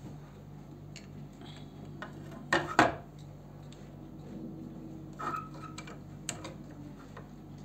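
Clinks and knocks of a stamped-steel router edge guide being handled and fitted against a trim router's base, with the motor off. Two sharp knocks come about two and a half seconds in and are the loudest; a short metallic ring follows a little after five seconds, and a click just after six, over a faint steady hum.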